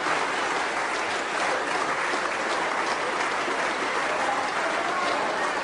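Members of Parliament applauding in the debating chamber: many people clapping at a steady level.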